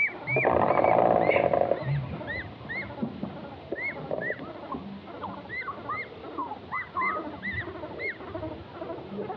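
Forest birds calling over and over in short, arched chirps. A loud, rough animal call starts about half a second in and lasts over a second.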